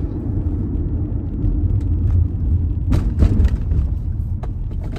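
Steady low rumble of a car driving, heard from inside the cabin, with a couple of sharp knocks about three seconds in.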